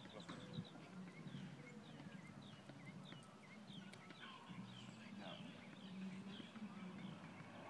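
Faint outdoor quiet: scattered short bird chirps over a low steady hum, with soft footsteps of a person and a small dog walking on asphalt.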